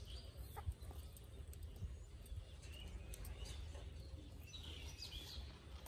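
Quiet outdoor ambience: a few faint bird chirps, the clearest cluster about three and a half to four and a half seconds in, over a low steady rumble.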